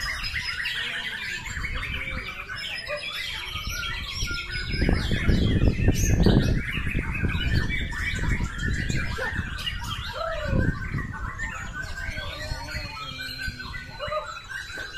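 Caged white-rumped shamas (murai batu) singing, a dense overlapping chorus of fast whistles and chirps from several birds at once. A louder low-pitched noise rises under the song for a couple of seconds near the middle.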